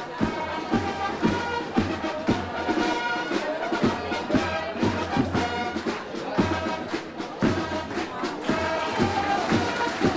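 A fanfare corps playing a march in the open air: brass fanfare trumpets sounding held chords over a steady marching drumbeat of about two strokes a second.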